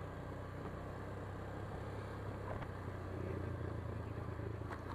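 Motorcycle engine running at a steady cruise while riding, a constant low drone with road noise over it.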